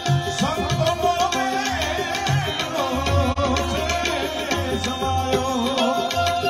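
Live Gujarati devotional bhajan: a man singing, with harmonium and tabla keeping a steady beat, heard through the stage PA. The singing comes in about half a second in.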